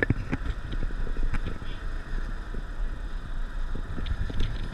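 Inside a moving vehicle: a steady low road rumble with frequent short sharp knocks, the strongest right at the start.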